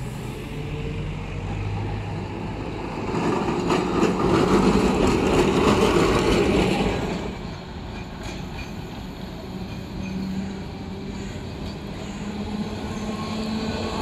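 Vintage Milan Class 1500 tram running on street track, its wheels rumbling and rattling over the rails, loudest about four to seven seconds in as it passes. After that it is quieter, then a tram draws near again, growing louder with a steady hum near the end.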